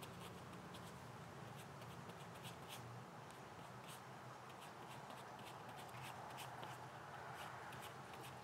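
Glue-pot brush spreading contact cement across a leather piece: faint scratchy brushing with many small ticks.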